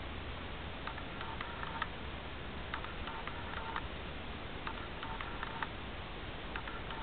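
Wind rumbling steadily on the microphone in an open field. About every two seconds there is a short cluster of clicks and high chirps.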